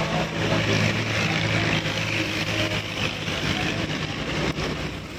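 Fish pieces deep-frying in a large karahi of hot oil, sizzling steadily, with a low steady hum underneath.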